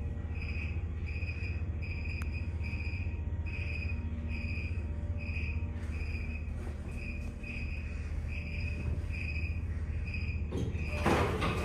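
A steady low hum under a high chirping beep that repeats about twice a second. Near the end comes a short rush of noise as the hydraulic Otis service elevator's doors begin to open.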